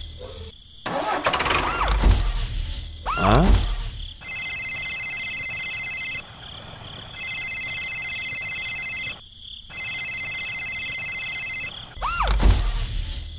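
A tractor engine revving in loud bursts at the start and again near the end. In between, a steady, high electronic ringing tone sounds in three long stretches with short breaks.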